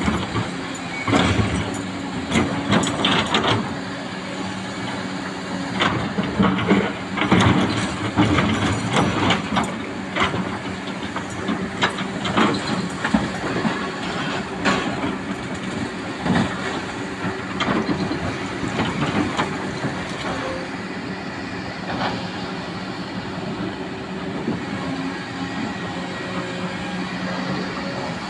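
Excavator's diesel engine running steadily, with many irregular metallic clanks and knocks over it, thickest in the first twenty seconds and fewer after.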